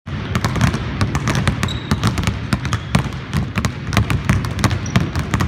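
Several basketballs being dribbled at once on a hardwood court, an irregular, overlapping patter of many bounces, several a second, echoing in a large empty arena.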